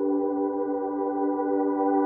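Ambient background music of held chords with no beat.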